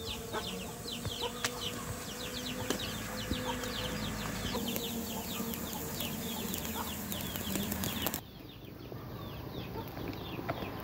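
Continuous high bird chirping, many quick descending chirps a second, over a wood fire crackling with a few sharp pops beneath roasting bamboo tubes.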